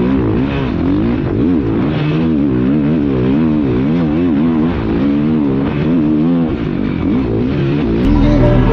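Motocross dirt bike engine at race pace, the revs rising and falling over and over with throttle and gear changes. Background music comes in near the end.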